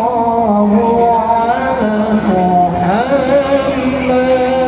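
A voice singing a sholawat, an Islamic devotional song in praise of the Prophet Muhammad, in long held notes with slow ornamented glides between them.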